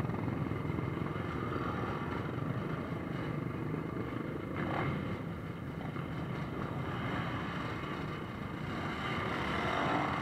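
Many quad-bike and dirt-bike engines running together as the bikes move off in a line, with single machines revving as they pass. One engine's pitch sweeps near the end.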